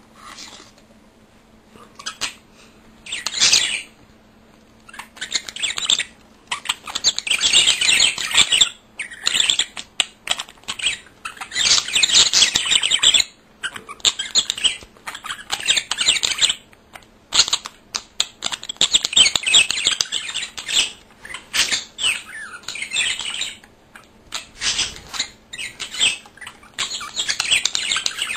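Pet budgerigars warbling and chattering: bouts of rapid high chirps a few seconds long with short pauses between, sparse at first and almost continuous from about six seconds in.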